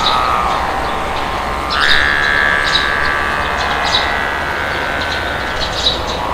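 Steady wind blowing, with birds chirping in short high calls several times. About two seconds in, a long whistling tone comes in suddenly and fades out over a second or so.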